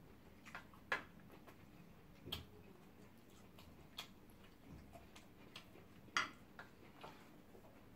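Quiet eating sounds: irregular soft clicks and smacks from chewing and a metal spoon on a ceramic plate, about a dozen spread over the stretch.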